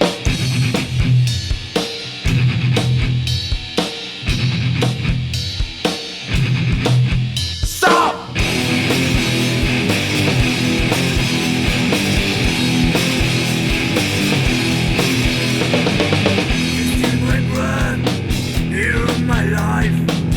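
Alternative metal / grunge band playing an instrumental intro: distorted electric guitars, bass and drum kit. For about the first eight seconds the band hits in stop-start bursts with short gaps, then plays on continuously.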